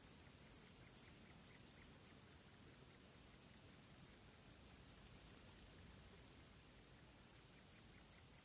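Near silence with faint insect chirping high in pitch, repeating about two to three times a second over a steady faint high hum. A couple of short chirps come about a second and a half in.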